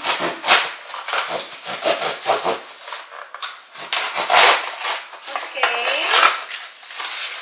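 Serrated kitchen knife sawing through a cardboard shipping box and its plastic wrap and tape: a run of irregular rasping, scraping cuts and rips. A brief high whine cuts in about two-thirds of the way through.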